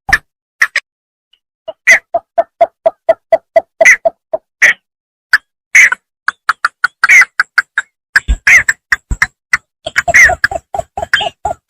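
Bittern calling: runs of short, sharp, clipped notes at about four a second, broken by brief pauses, the runs growing faster and denser in the second half.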